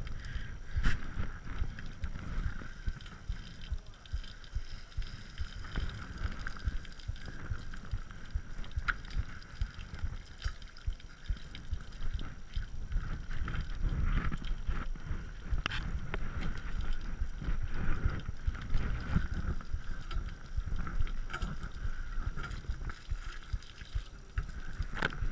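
Low rumble and handling noise picked up through the frame of a Lapierre full-suspension mountain bike by a camera mounted on it, with many small clicks and knocks throughout.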